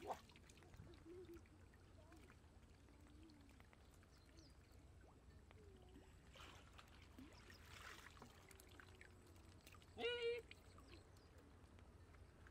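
Mostly quiet, with faint sloshing and splashing of muddy pond water as hands dig through the mud, twice more plainly a little past the middle. A brief high-pitched call, the loudest sound, comes about ten seconds in.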